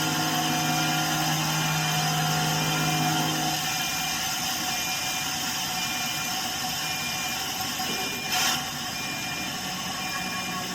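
A machine running steadily, with a hum and several steady tones. A low hum drops out about 4 seconds in, and a short burst of noise comes near the end.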